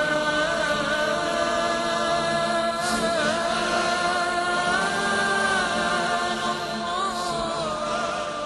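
Background vocal music: chanting with long held notes that waver slowly in pitch, with no instruments heard.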